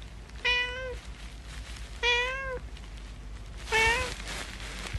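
A cat meowing three times, short calls of about half a second each, spaced roughly a second and a half apart, each holding one pitch.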